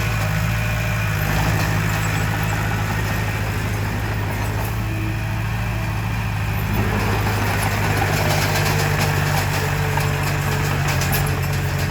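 Komatsu D20P crawler bulldozer's diesel engine running steadily, getting a little louder about seven seconds in.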